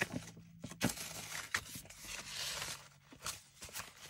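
Paper journal pages rustling and crinkling as they are handled and ribbon is pulled through their punched holes, with several light taps and a longer rustle about two seconds in.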